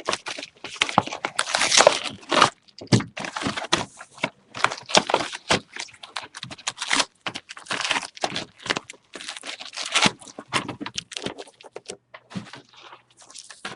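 Plastic and foil wrapping crinkling and tearing in irregular crackles as a sealed box of Topps Prime football card packs is unwrapped and opened.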